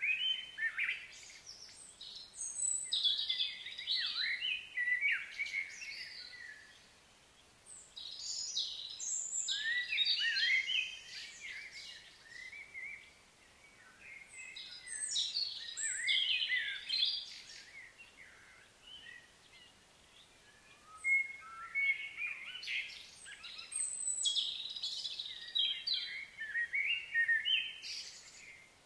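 A bird singing in bouts of quick, varied chirping notes: four bouts of several seconds each, separated by short pauses.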